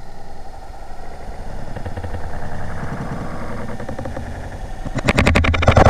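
Underwater fish call rattled to draw fish in: a fast run of sharp clicks, about a dozen a second, faint at first and loud in the last second.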